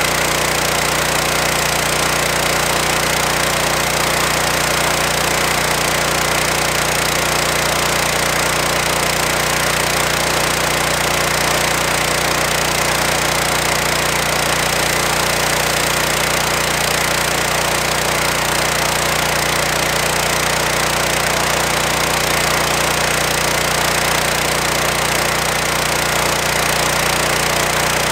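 Loncin G420 single-cylinder petrol engine driving a high-pressure washer pump, running steadily at constant speed.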